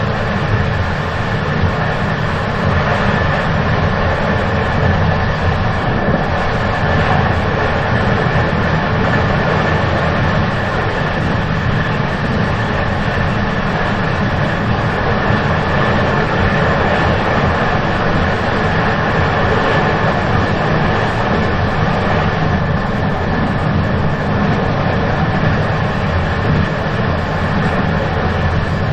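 Moving train running steadily: an even rumble and rushing noise with a faint steady high tone, no clear wheel clacks.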